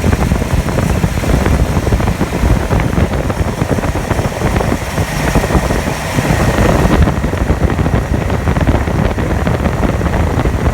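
1956 Ford Thunderbird's V8 engine running at raised RPM with the air-conditioning system operating, held above idle so the compressor's low-side pressure can be checked.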